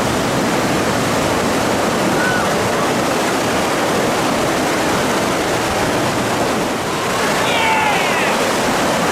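Rushing whitewater of river rapids, a steady, loud roar of water.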